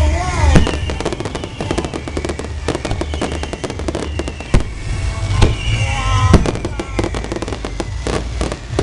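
Fireworks display: booming shell bursts over a low rumble, with dense crackling between them. Heavier bangs come about half a second in and again several times from about four and a half to six and a half seconds.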